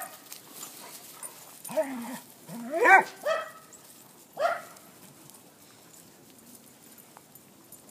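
Dogs barking and yipping in play: four short pitched barks between about two and four and a half seconds in, the loudest a rising yelp about three seconds in.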